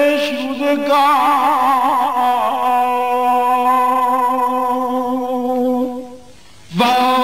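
Male singer holding a long sung note on the word 'rouzegar' in a Persian koocheh-baghi song, with a rapid wavering trill (tahrir) about a second in before the note settles. A new phrase starts with a rising note near the end.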